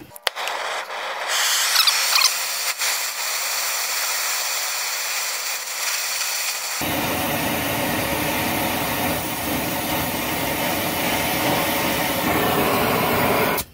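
Oxy-fuel torch lit with a sharp pop, then its flame hissing steadily as it burns leftover weld slag off a rusted exhaust pipe. About halfway through, a deeper rush fills in under the hiss, and the sound cuts off suddenly near the end.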